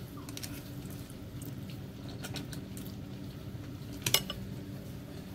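Someone eating instant noodles from a bowl: quiet chewing and small utensil clicks, then one sharp clack of the utensil against the bowl about four seconds in. A steady low hum runs underneath.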